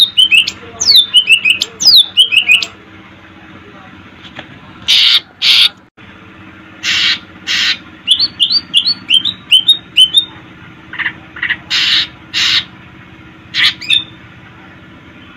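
Cucak ijo (green leafbird) singing: runs of quick, downward-sliding whistled notes mixed with loud, harsh squawking notes, with a short pause a few seconds in.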